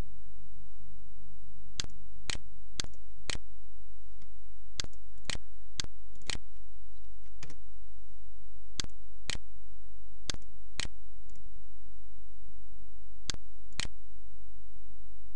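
Computer mouse clicking: about fifteen sharp clicks, mostly in pairs about half a second apart, over a steady low hum.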